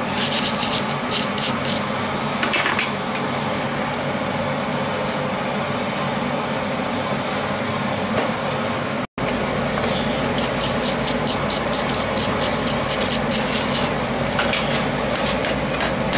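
Steel wire brush scrubbing scale off a hot forged steel piece on the anvil in quick scratchy strokes, about five a second, in bursts near the start and again in the second half. A steady mechanical hum runs underneath.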